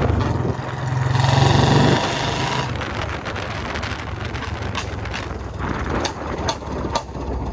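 Royal Enfield Bullet's single-cylinder engine pulling under throttle for about two seconds, then easing off. Rushing road and wind noise follows, with several sharp exhaust pops near the end.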